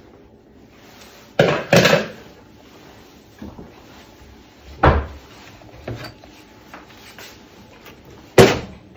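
Metal roasting tray clunking against the gas hob grates as it is handled: a quick pair of knocks about a second and a half in, another clunk near the middle, and the loudest one near the end.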